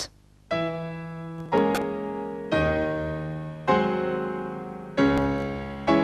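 Slow piano-like keyboard music: sustained chords struck about once a second, each ringing on and fading before the next. It starts about half a second in, after a brief silence.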